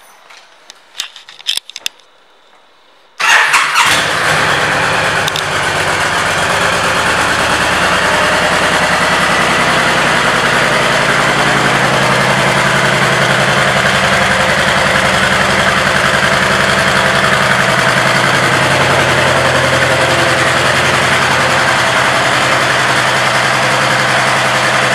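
A few light clicks, then about three seconds in the 2010 Honda Stateline's 1312 cc V-twin starts with a sudden loud catch. It settles into a steady idle.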